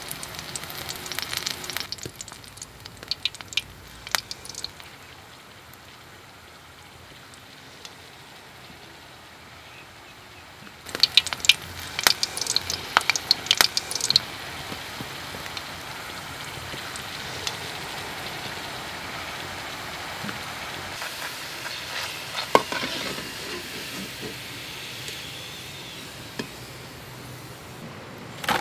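Hot oil in a pan crackling lightly, then spattering in a burst of sharp crackles as a piece of food goes in about eleven seconds in, settling into a steady sizzle of deep frying.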